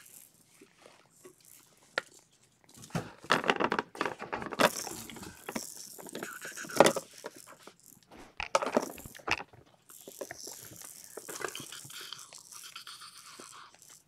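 Irregular rustling, scraping and small clicks as kittens are handled and petted and move about.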